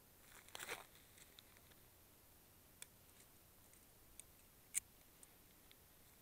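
Near silence with a short rustle about half a second in, then a few faint sharp clicks, the loudest one just before five seconds in.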